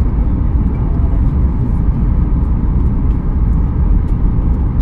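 Steady low rumble of cabin noise inside a Boeing 737 MAX 8 on descent: its CFM LEAP-1B engines and the airflow over the fuselage.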